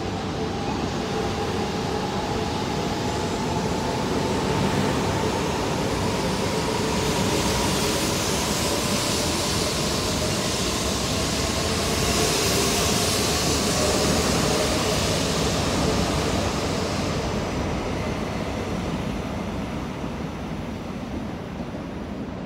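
E4-series double-deck Shinkansen pulling out of a station and accelerating past, with a motor whine climbing in pitch over the first few seconds under the steady rush of wheels and running gear. The noise builds to a hissing peak midway as the cars go by, then fades as the train leaves.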